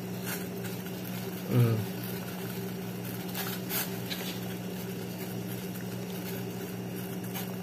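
Water at a rolling boil in a stainless steel pot, a steady bubbling over a constant low hum. A short vocal sound comes about one and a half seconds in, and a few light clicks about three and a half seconds in.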